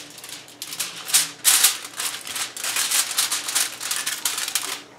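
Aluminium foil crinkling and crackling in irregular bursts as a sheet is spread and pressed down over a foil baking pan.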